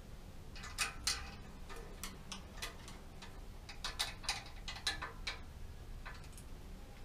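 Irregular light metallic clicks and taps of hand work on a bicycle in a repair stand, around its rear brake, with small clusters about a second in and again around four to five seconds in.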